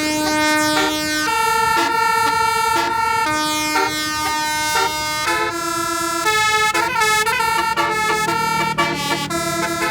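Bus "telolet" musical air horn of the basuri type playing a tune: a run of held and short notes that step up and down, with several tones sounding together.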